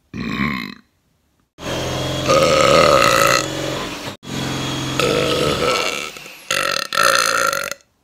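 A run of loud burps from teenage boys: one short burp, then two long drawn-out burps of about two seconds each, then two shorter burps near the end.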